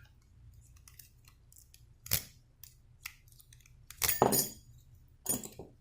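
A steel rake pick scraping across the wafers of a wafer lock under a tension wrench: faint scratching with a few sharp metallic clicks, the loudest about four seconds in.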